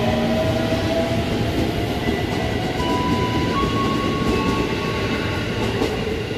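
JR 205-series electric commuter train accelerating away, its IGBT-VVVF inverter giving off steady whining tones that step up in pitch about three seconds in, over the rumble of the wheels on the rails.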